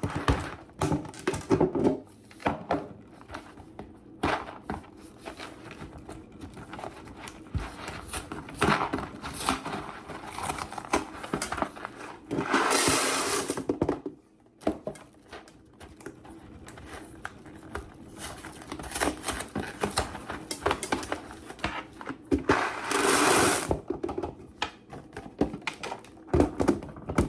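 Dry elbow macaroni being poured into a storage container: scattered clicks and rattles of pasta pieces landing, with two louder rushes of pouring, about halfway through and again near the end.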